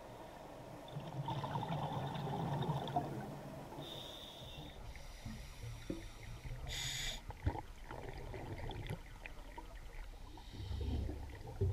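Scuba diver breathing through a regulator underwater: several breaths, each a hissing inhale followed by a rush of exhaled bubbles, heard muffled through the camera's underwater housing.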